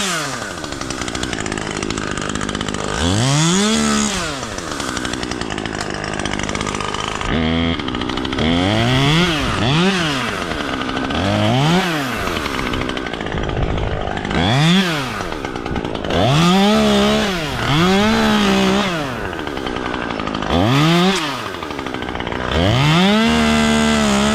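Husqvarna 540iXP battery chainsaw throttled in about ten short bursts, its motor whine rising quickly with each squeeze of the trigger and falling away as it is released.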